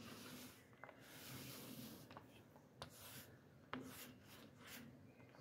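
Faint hiss of a foam paint roller rubbing wet 2K paint across a car body panel in a run of back-and-forth strokes, with a few light clicks.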